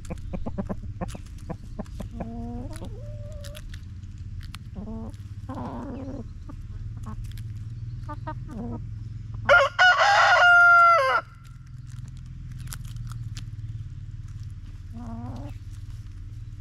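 Backyard chickens clucking in short, low bursts while pecking at scattered food, with quick pecking clicks throughout. About ten seconds in, one bird gives a loud, drawn-out call lasting under two seconds.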